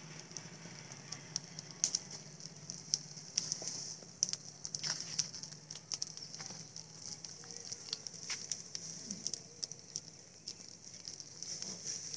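Pile of dry guava and other fallen leaves burning, crackling and popping in irregular sharp snaps, over a steady high-pitched hiss.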